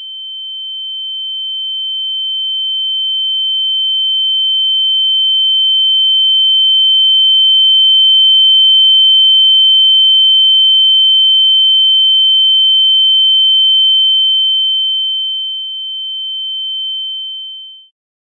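A single high-pitched pure electronic tone held at one steady pitch, growing louder through the first half, dipping slightly late on, then fading out quickly shortly before the end.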